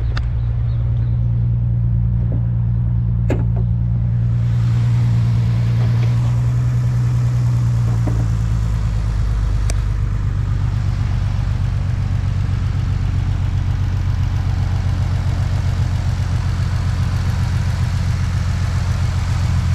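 Car engine running steadily, a loud low hum; a strong low note in it fades about 8 seconds in. A few sharp clicks sound over it in the first ten seconds.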